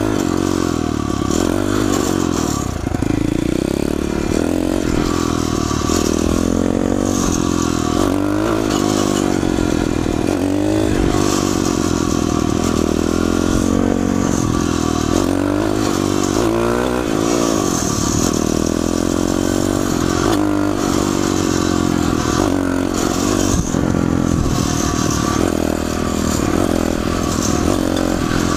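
Small dirt bike's Piranha 140cc single-cylinder four-stroke engine running under way, its pitch rising and falling again and again as it revs up and shifts through the gears.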